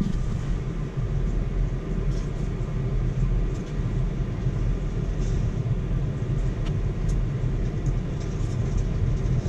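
Tractor cab blower fan running steadily on its second speed setting, with a constant low rumble underneath.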